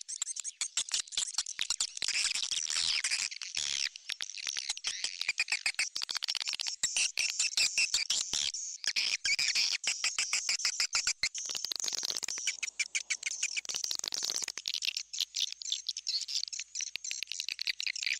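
Recorded swiftlet call played as a lure for swiftlet houses: dense, rapid, high-pitched chirping and twittering, many clicks and chirps a second, without pause.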